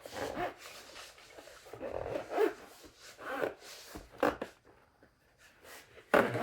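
Fabric carrying case, tightly packed with a car vacuum and its attachments, being handled and zipped shut under strain: a series of short, irregular rubbing rasps of the zip and fabric.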